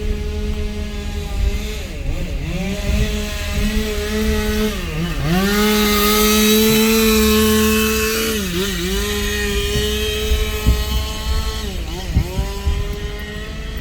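Chainsaw running at high revs, its pitch dropping and recovering about four times as the throttle is eased and opened again, and loudest about midway through, typical of cutting up storm-felled wood.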